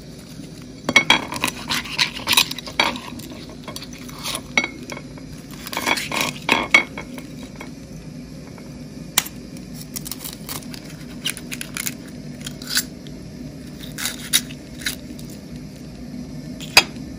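Scattered clicks, taps and light scrapes of eggshells and utensils against a ceramic plate as boiled salted chicken eggs are split in half, busiest in two flurries early on, with a single sharper click near the end.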